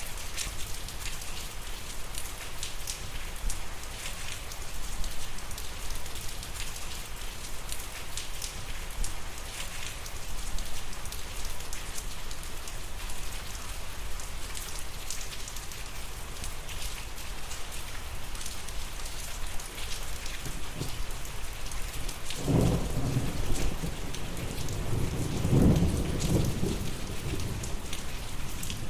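Steady rain falling, with many separate drop hits over a continuous hiss. Low thunder rumbles in two swells late on, the second one louder.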